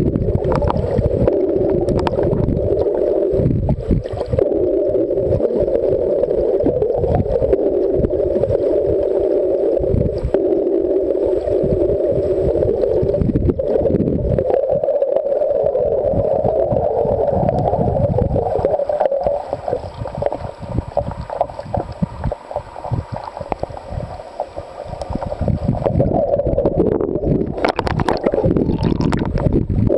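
Muffled underwater noise picked up by a camera submerged in the sea: water rumbling and crackling against the camera with a steady hum. It is quieter for several seconds past the middle, then returns.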